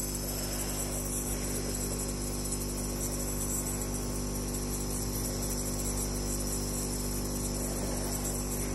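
Jet nebulizer's air compressor running with a steady buzzing hum.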